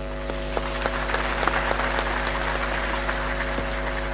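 Applause from the assembly: scattered claps that thicken about a second in and thin out near the end, over a steady electrical hum from the sound system.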